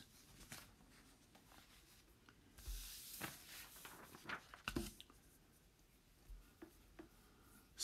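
Near silence: faint room tone, with a brief soft rustle about three seconds in and a few faint small clicks.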